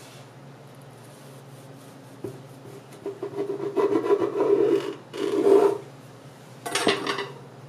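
Serrated bread knife sawing back and forth through a crusty almond-flour loaf on a bamboo cutting board, starting about three seconds in. A short burst and a sharp knock come near the end.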